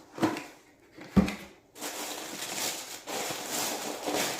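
Two short knocks on a cardboard shoebox, then rustling of the box and paper wrapping being opened, starting a little under two seconds in.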